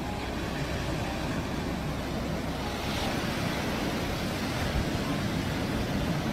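Steady rush of ocean surf breaking on a beach.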